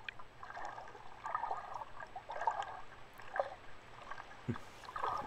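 Muffled underwater water sounds, gurgling in soft surges about once a second, with scattered faint clicks.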